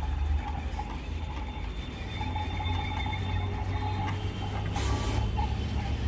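SkyCut vinyl cutting plotter contour-cutting a sheet of printed vinyl stickers: its carriage and roller motors run with a steady low hum and faint whining tones as the cutting head moves. A brief hiss comes about five seconds in.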